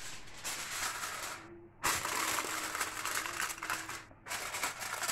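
Aluminium foil crinkling and crackling as it is spread over a glass baking dish and pressed down around the rim by hand, with two brief breaks.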